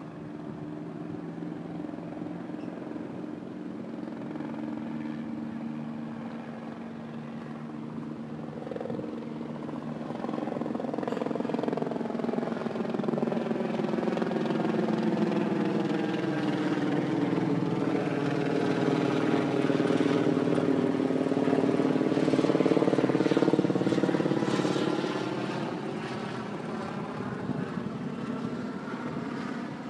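Helicopter flying past overhead: a steady engine and rotor drone that grows louder as it approaches, peaks about three quarters of the way through, then fades as it moves away.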